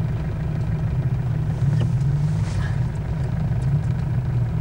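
Off-road vehicle engine running steadily at low revs, a low drone heard from inside the vehicle's cab, with a few faint ticks.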